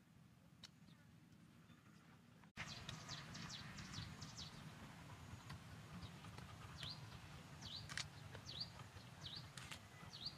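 A small bird calling outdoors: a short high chirp that dips and rises, repeated roughly once a second over a faint steady outdoor background. The background changes abruptly about two and a half seconds in, getting louder and busier with chirps.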